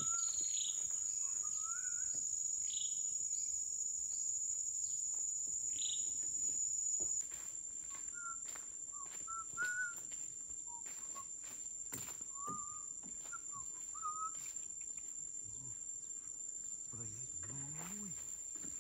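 Insects droning steadily in a high-pitched, unbroken tone, with birds chirping short calls on and off. About seven seconds in, the drone shifts a little in pitch and gets quieter.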